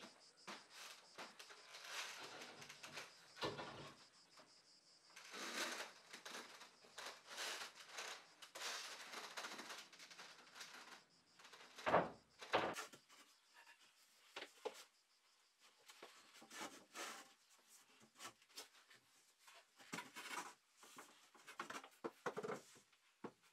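Faint scattered knocks, bumps and scrapes from handling and fitting a Fermacell gypsum fibre board overhead, with the sharpest knock about halfway through.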